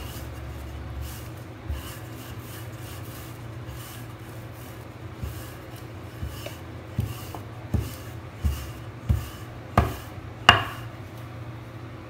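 Wooden rolling pin rolling out dough on a marble countertop: soft, repeated rubbing strokes, then from about seven seconds in a run of six wooden knocks, roughly one every two-thirds of a second, the loudest near the end. A steady low hum runs underneath.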